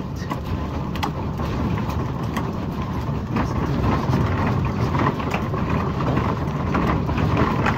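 Wheels of a wire luggage trolley loaded with bags rolling over concrete pavement: a steady rumble with many small rattles and clatters.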